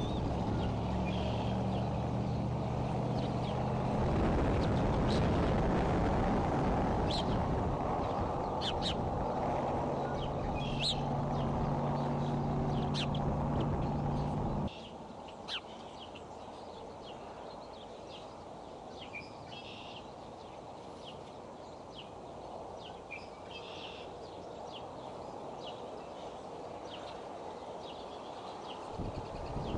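Outdoor nest-cam audio of short, high bird chirps scattered throughout. For the first half, a loud low rumble with a steady low hum lies under them, then drops off abruptly about halfway through.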